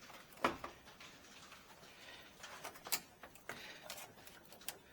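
Small plastic trim pieces being handled and pushed into place, with two sharp clicks about two and a half seconds apart and a few fainter ticks between.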